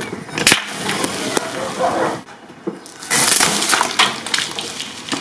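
Car tyre rolling onto a full aluminium soda can and crushing it. There is crunching and crackling, then the can bursts about three seconds in with a sharp crack and a hissing spray of fizzing soda.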